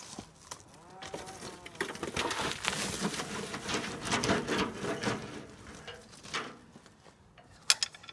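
Soil pouring and sliding out of a tipped wheelbarrow onto a pile: a rattling rush of falling dirt lasting a few seconds, then tailing off. A sharp knock near the end.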